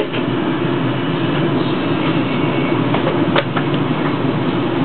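London Underground Northern Line 1995 Stock tube train pulling away from the station into the tunnel: steady motor and wheel-on-rail running noise, with a couple of sharp clicks about three and a half seconds in.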